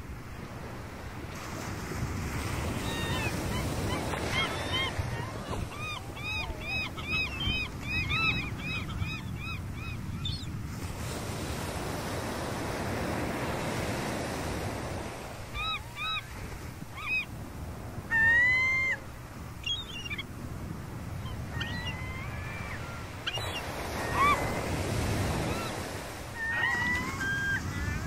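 Gulls calling over surf on the shore, with waves breaking in slow swells. Gulls give a rapid run of repeated yelping calls a few seconds in, then scattered single calls, the loudest a little past the middle.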